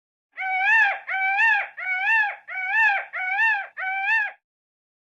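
Peacock calling: six loud calls in quick succession, about one every 0.7 s, each rising and then falling in pitch.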